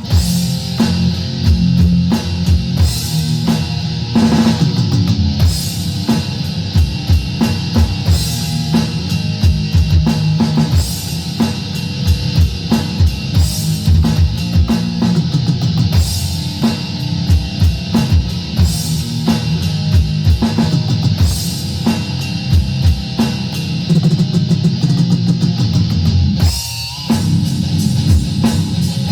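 Instrumental rock music with a drum kit keeping a steady beat under guitar, breaking off briefly near the end before coming back in.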